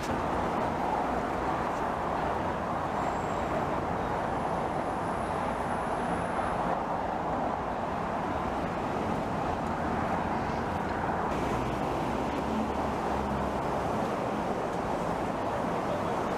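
Steady traffic or moving-vehicle noise, an even, continuous wash of sound with no clear events.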